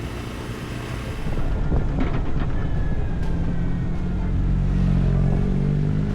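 BMW R1150RT's boxer twin engine running under load on the road. It gets louder about a second and a half in, then holds a steady note.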